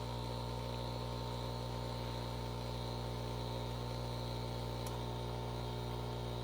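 Espresso machine's pump humming steadily as it pushes water through and pours coffee, with the large-cup button held down to set the pour volume.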